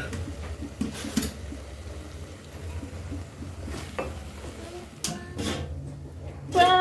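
Cooking pot and utensils clinking and scraping, with a few sharp knocks, over a steady low hum.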